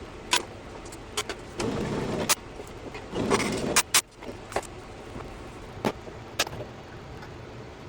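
Workshop handling noises: about nine sharp clicks and knocks of metal tools and parts being handled, with two short stretches of scraping noise in the first half.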